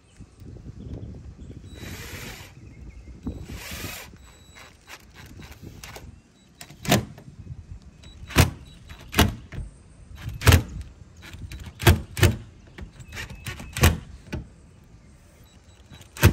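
Cordless drill driving screws through a roof fan's plastic mounting flange into a Sprinter van's sheet-metal roof: a few short runs of the drill, then a series of sharp knocks about a second apart as the screws are set.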